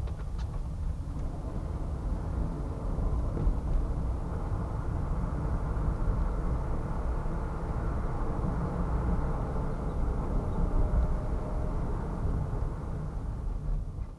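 Car driving through town: steady, mostly low-pitched engine and road noise.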